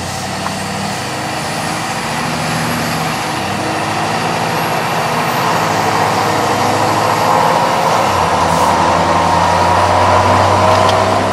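Ford Super Duty 6.7 Powerstroke diesel engine and exhaust under acceleration, heard through a partly open window together with the road hum of Nitto Mud Grappler tires, which may mask the exhaust. The noise grows steadily louder, with a whine rising in pitch in the second half.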